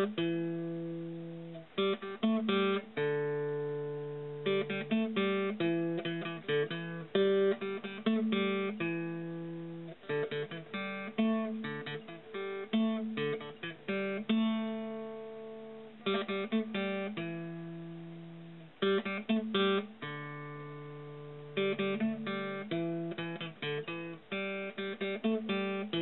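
Solo acoustic guitar music: quick runs of picked notes alternating with chords left to ring out and fade.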